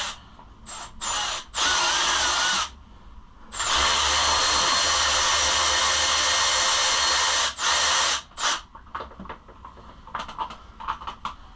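Cordless drill-driver running in short bursts, then in one steady run of about four seconds, then two brief bursts, as it backs out the bolts holding the plastic front fender of a Kawasaki KLX110.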